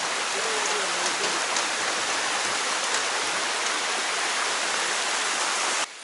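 Shallow rocky stream rushing and splashing over boulders, a steady hiss of running water that cuts off abruptly near the end.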